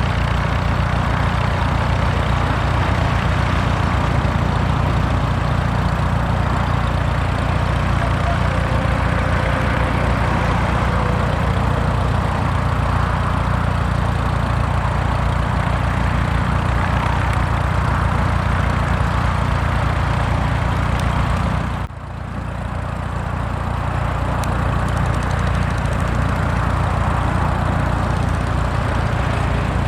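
Tractor engine running steadily with a low throb, dropping away briefly for a moment about three-quarters of the way through before coming back.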